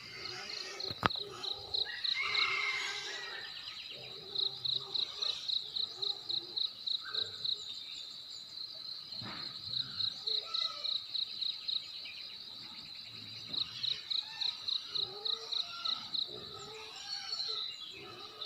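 A cricket chirping at a high pitch, about three chirps a second, in bouts of several seconds. Softer bird calls sound under it, with a single sharp click about a second in.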